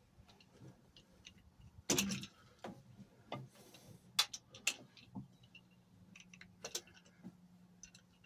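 Scattered clicks and clinks of metal tools and hose clips being handled, several sharp ones loudest. A low steady hum comes in about five seconds in.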